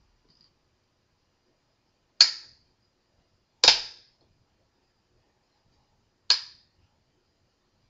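Three sharp snaps, the second about a second and a half after the first and the third about two and a half seconds later, each dying away quickly.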